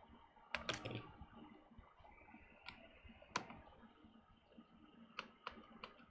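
Faint, scattered clicks and ticks, about seven spread irregularly, of a small precision screwdriver and its screws being worked on a MacBook's case.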